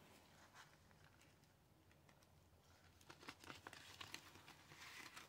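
Near silence, then faint rustles and light clicks from about three seconds in as paper bills are handled and counted.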